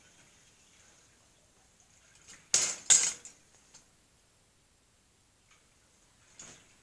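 Two short, loud metallic clanks about a third of a second apart as a large metal tank shifts against a steel garden cart, with a fainter knock near the end.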